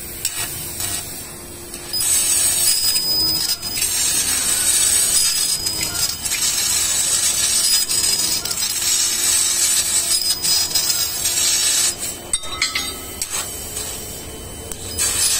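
4 kW fibre laser tube cutter cutting a 5 mm carbon steel square tube: the cutting gas jet and spark spray make a loud, steady hiss. It starts about two seconds in, drops quieter with a few clicks for about three seconds near the end, and starts again just before the end.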